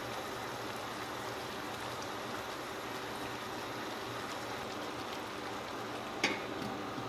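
Jjajang sauce simmering with the chicken in a stainless steel wok, a steady bubbling. About six seconds in, a single sharp clink as the glass lid is set onto the wok.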